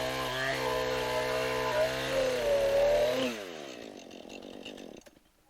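Husqvarna two-stroke chainsaw running at high revs, cutting log rounds, its pitch dipping slightly under load. About three seconds in the engine speed falls away and the sound dies out.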